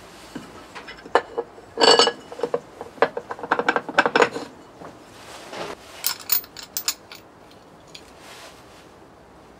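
Metal tools and parts clinking and clattering during motorcycle engine work: a run of sharp knocks and clinks, the loudest about two seconds in with a brief metallic ring, a busy cluster shortly after, and lighter ticks near the middle.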